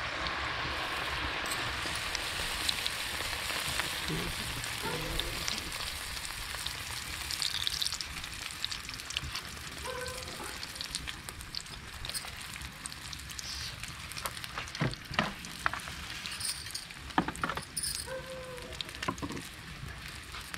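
Sel roti batter frying in hot oil in an iron kadai: a loud sizzle as the ring of rice-flour batter goes into the oil, easing after several seconds to a quieter, steady sizzle. A few sharp clicks come in the second half.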